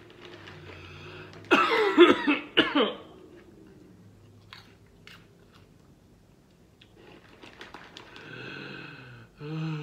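A person coughs harshly several times in quick succession, then crunches and chews Carolina Reaper kettle corn popcorn with a few small crisp crunches, and makes a brief voiced sound near the end.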